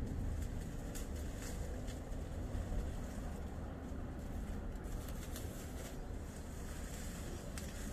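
A steady low outdoor rumble, with scattered small clicks and rustles of leaves and twigs as lychees are picked by hand from the tree.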